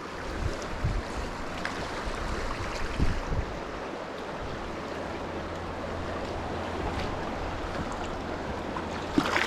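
Fast mountain river rushing over stones in a strong current: a steady wash of water noise, with a couple of low bumps about one and three seconds in.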